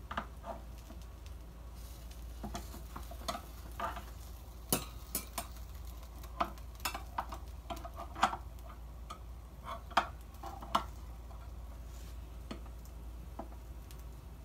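A spatula scraping and tapping against the pan of an electric grill maker as it works under a cooked cake, giving irregular short clicks and scrapes that stop about 11 seconds in.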